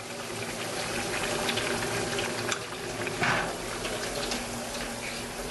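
Spicy stir-fried pork (jeyuk-bokkeum) and vegetables sizzling steadily in a frying pan, with a few light clicks and knocks about midway.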